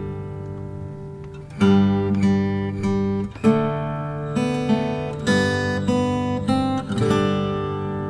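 Background music: acoustic guitar strumming chords, with a fresh strum about every second.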